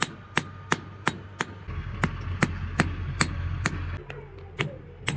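Hand hammer striking metal on an anvil in forging, a steady run of ringing blows about three a second with a short pause near the end. A low steady hum sits underneath for a couple of seconds in the middle.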